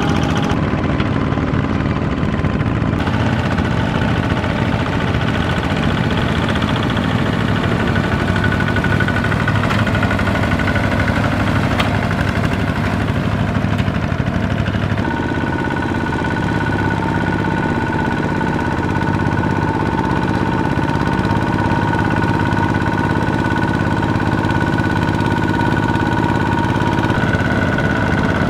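Kubota ZT two-wheel walking tractor's single-cylinder diesel engine running steadily under load as its cage wheels churn through the muddy rice paddy. The engine note shifts about 3 seconds in and again about halfway through.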